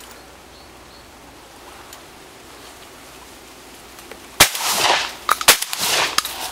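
Two blasts from a double-barrelled shotgun fired at a flying pigeon, about a second apart and loud, each with a long noisy tail, coming after several seconds of quiet outdoor background.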